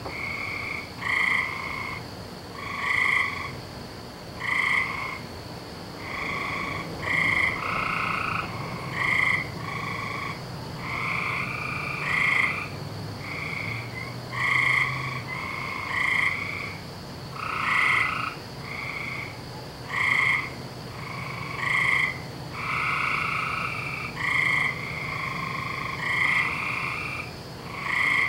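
A chorus of frogs calling at night. Short calls, each under a second, come from several frogs and overlap one another, with the loudest arriving about every second and a half.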